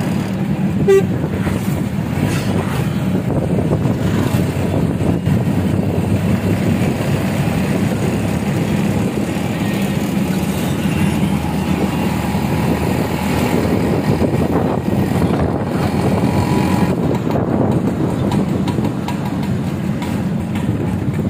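Steady engine and road noise of a moving vehicle, heard from on board, with tyres running on a wet road. A short sharp sound stands out about a second in.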